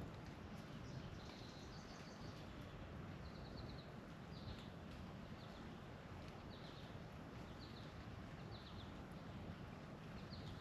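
Birds chirping outdoors, short high trilled notes repeating about once a second over a steady low background rumble and hiss.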